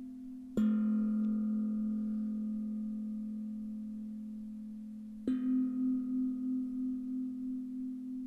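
Two strikes on tuned ringing metal instruments, just after the start and about five seconds in, each ringing on with a long, slowly fading tone. They alternate between two slightly different pitches, lower then higher, and each strike marks a change of breathing phase in the exercise.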